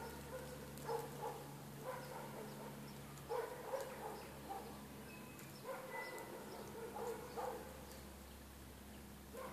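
Short animal calls, repeated about once a second and sometimes in pairs, over a steady low hum.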